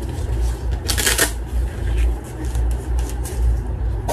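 Rustling and handling of unboxing: a camcorder being drawn out of its fabric pouch and the cardboard box and papers being moved, with a louder rustle about a second in, over a steady low rumble.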